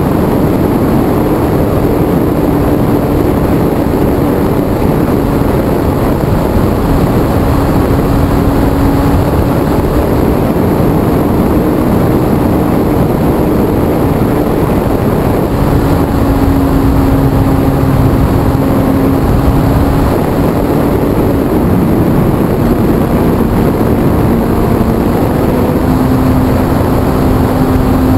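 HobbyZone Super Cub RC plane's electric motor and propeller heard from an onboard camera: a steady drone whose pitch shifts slightly up and down several times with the throttle, under loud rushing wind on the microphone.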